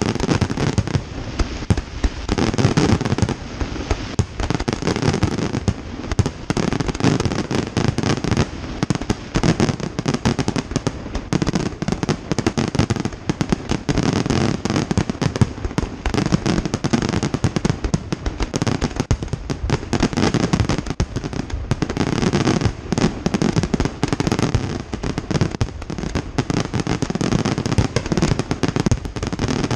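Aerial fireworks display: a dense, continuous barrage of shell bursts, bangs and crackling.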